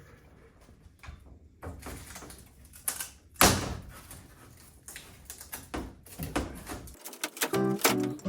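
A series of scattered knocks and thuds, the loudest about three and a half seconds in. Guitar music comes in near the end.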